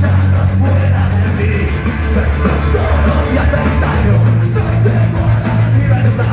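Punk rock band playing live: bass, electric guitar and drums with the singer shouting the lyrics into the microphone. The bass line shifts up a step about four seconds in.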